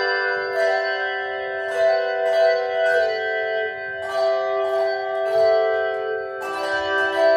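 A handbell ensemble playing a slow tune: one bell after another is rung about every half second to a second, and each note rings on under the next.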